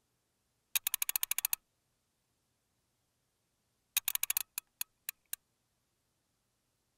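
Two runs of rapid, sharp clicks: about ten close together in under a second near the start, then another quick run about four seconds in that thins out into four single clicks.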